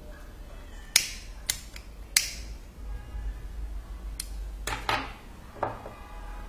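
A disposable lighter being struck again and again to light the wick of a small spirit lamp: about six sharp clicks, a second or so apart.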